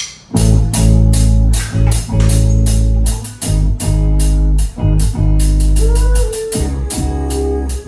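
Live band kicking into the instrumental opening of a song about a third of a second in, after a few drumstick clicks. Drum kit, bass guitar and electric guitar play together, with strong low notes and a few brief stops on the beat.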